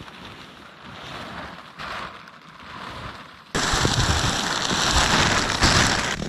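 Clear plastic sheeting rustling and crackling, turning much louder about three and a half seconds in as it is handled close by.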